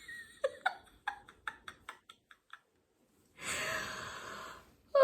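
Laughter tailing off into short breathy pulses, about five a second and fading, then a long breath after a short pause, from a person laughing with a head cold and a stuffed-up nose.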